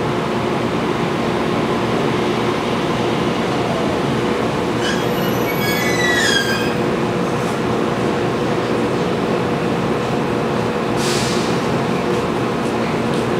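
Inside a JR Kyushu 415 series 500-subseries electric train running on the line: a steady rumble of motors and wheels on the rails with a low hum. About five seconds in, a brief high wheel squeal slides down in pitch. Near eleven seconds there is a short hiss.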